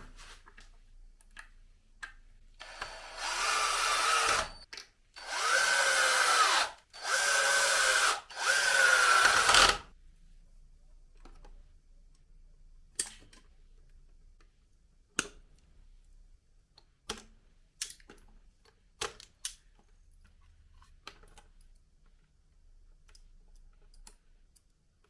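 Power drill run in four short bursts, its motor pitch rising and falling with each run, then a series of light clicks and knocks.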